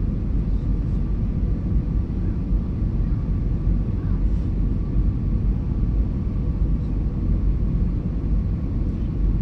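Airbus A320 cabin noise: a steady low rumble of engines and airflow, heard inside the cabin on the approach to landing.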